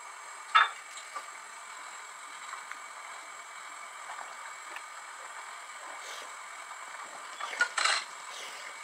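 A person eating fried takeout food: a short chewing crunch about half a second in and a couple more near the end, over a steady background hiss.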